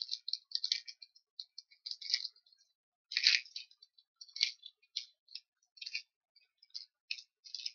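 Plastic snack wrapper crinkling and crackling in irregular bursts as it is handled and pulled open by hand, loudest about three seconds in.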